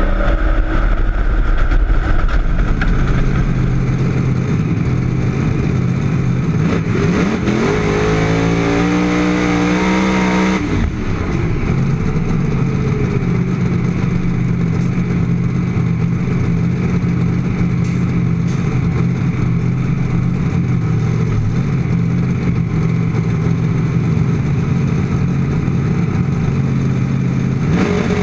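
Drag race car engine heard from on board, revving with rising and falling pitch in the first third. It changes abruptly to a steady, even running note, and the revs begin to climb again at the very end.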